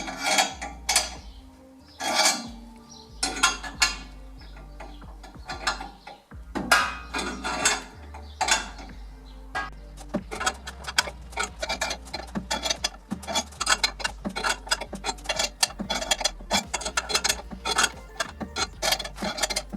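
Wrench turning the screws of a homemade puller to press the pinion out of a GM 7.5-inch 10-bolt rear axle, making metallic clicks. The clicks come a few at a time at first, then in rapid runs from about halfway through.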